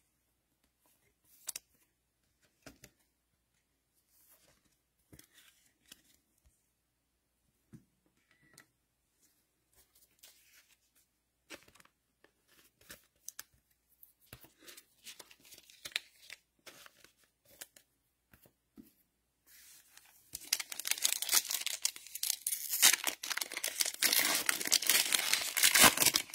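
Foil wrapper of a Mosaic NFL trading-card pack being torn open and crinkled by hand, a loud crackling tear that starts about 20 seconds in and lasts about six seconds. Before it there are only faint scattered clicks.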